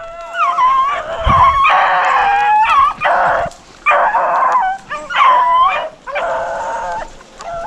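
A pack of rabbit hounds baying and yelping together, several drawn-out bays overlapping in bouts with short breaks: the dogs giving mouth as they run a rabbit's trail.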